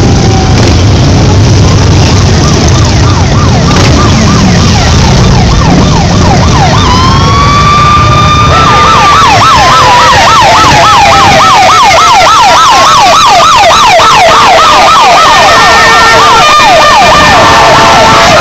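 Harley-Davidson motorcycles rumble past, and several sirens yelp and wail over them, overlapping, from about two seconds in. The sirens grow louder in the second half while the engine rumble fades.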